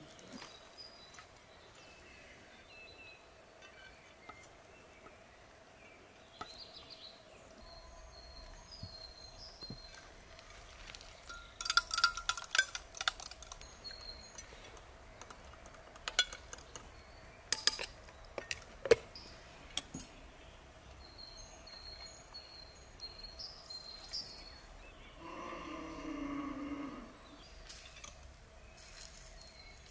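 Serving spoon scraping and clinking against a metal tray and ceramic plates as pilaf is dished out, in scattered sharp clinks. Faint high chirps sit in the background, and a short pitched call comes near the end.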